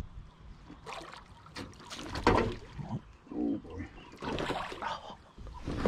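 Short, irregular splashes of water beside an aluminium boat as a hooked bass thrashes at the surface and is brought into a landing net; the loudest splash comes a little past two seconds in.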